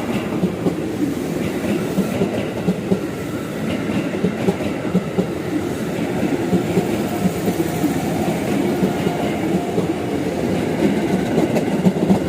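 Train running past on the track: a steady rumble with wheels clattering over the rail joints.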